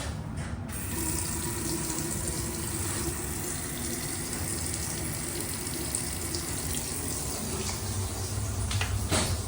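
Steady rush of water, even and unbroken, with a brief swell near the end.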